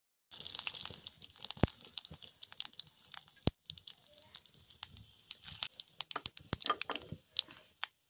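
Dried red chillies and cumin seeds sizzling in hot oil in an iron wok for a tempering. A steady high hiss runs under a rapid, irregular scatter of sharp crackles and pops.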